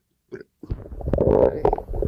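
Human stomach gurgling and rumbling as it digests a light breakfast. It starts after about half a second of silence broken by one brief blip.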